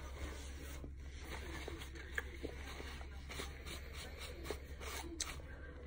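A thin plastic bag of powdery starch being rubbed and crinkled between the hands, with scattered small crackles over a low steady hum.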